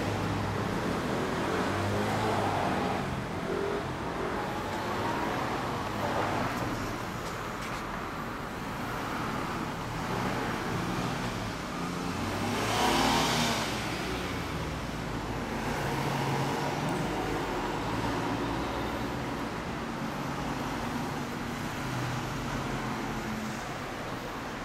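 Small Honda Monkey motorcycle engine running at idle, steady and uneven, with one louder swell about halfway through.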